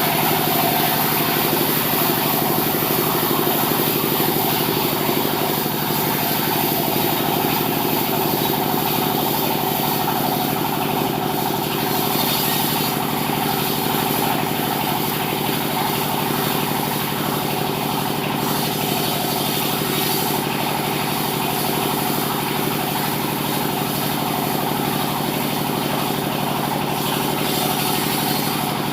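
Sawmill machinery running steadily: an engine hum at a constant pitch and level, with no clear rise or fall.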